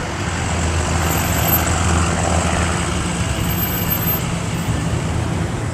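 A vehicle engine running steadily: a low drone over general street noise.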